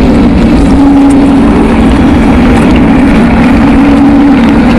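A motor running steadily at high level, a droning hum whose pitch wavers slightly up and down.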